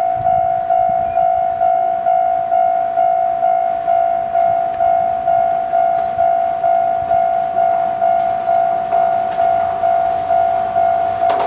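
Railway level-crossing warning bell ringing: a steady-pitched electronic clang repeating about twice a second, the signal that a train is approaching. Right at the end the noise of the oncoming train begins to rise under it.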